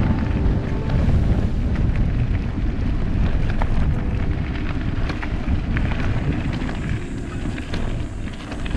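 Wind buffeting the microphone in a heavy, uneven rumble, with scattered small clicks and rattles over it.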